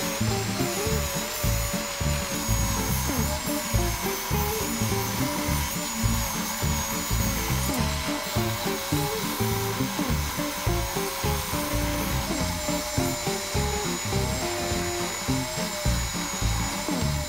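Background music with a steady beat, over a benchtop oscillating belt sander running as plywood edges are pressed against its belt.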